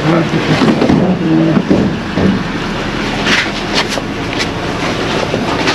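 The lid of a large plastic waste bin is heaved up and flipped open, with knocks and clatters about three to four seconds in.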